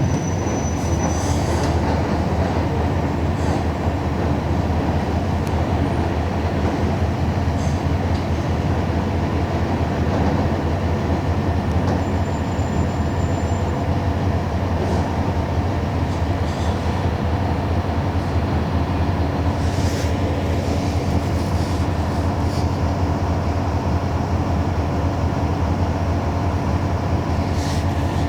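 Mercedes-Benz OF-1721 bus's OM-366LA six-cylinder turbo diesel running steadily with a low, even hum, with a few faint clicks now and then.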